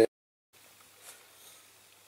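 Near silence: a spoken word ends, then half a second of dead silence, then faint room tone with one faint tick.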